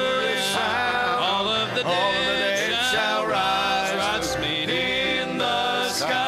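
Male vocal trio singing a gospel song in harmony with vibrato, accompanied by grand piano.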